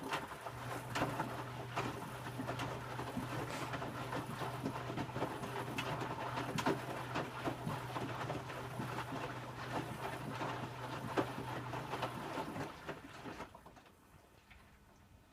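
Electrolux W455H commercial washing machine in the wash phase of a Warm 60 cycle: the drum motor hums steadily while the load tumbles and sloshes in the water, then the drum stops about twelve seconds in and the sloshing dies away.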